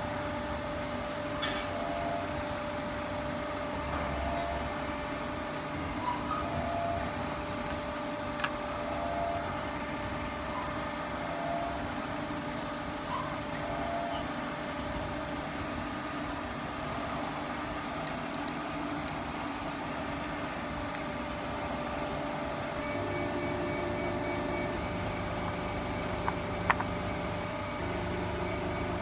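Milling machine running steadily, a constant hum with one steady tone. A few light clicks and knocks are heard, with a louder one near the end.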